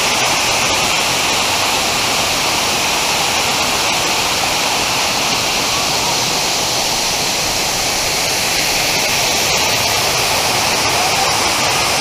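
Waterfall: falling water rushing steadily and loudly, an even hiss that does not change.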